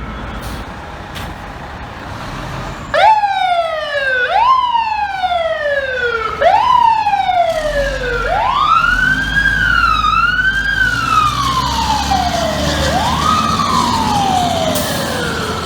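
Fire truck siren cutting in about three seconds in, with several quick upward sweeps that each slide slowly back down. It then settles into longer, slower rises and falls over street traffic noise.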